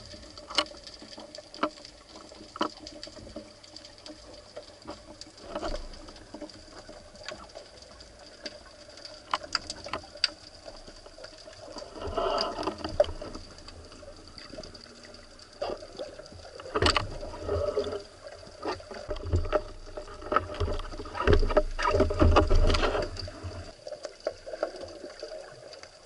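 Underwater sound picked up by a spearfisher's camera: water moving past, scattered sharp clicks and knocks, and a faint steady high tone. In the second half there are louder stretches of rushing and low rumble as the diver swims and moves.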